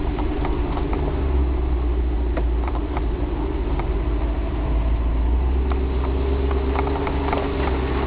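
Land Rover 110's V8 engine running steadily at low revs, heard from inside the cab, with frequent small knocks and rattles over it.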